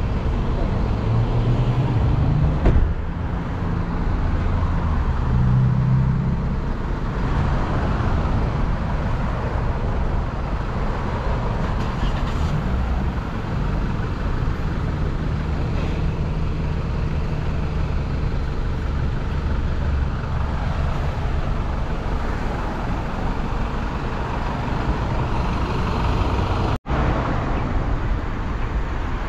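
City street traffic: cars and other vehicles running and passing on the road, a steady rumble of engines and tyres, with a heavier engine passing close about a second in and again around six seconds.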